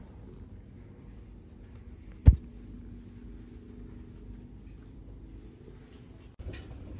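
Faint steady chirring of crickets, with a single sharp thump about two seconds in.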